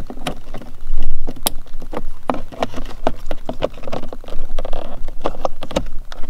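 Hard plastic centre-console trim clicking and rattling in irregular taps as a hand presses and wiggles it. The console's front clips are broken and bent, so it shifts and knocks when pushed.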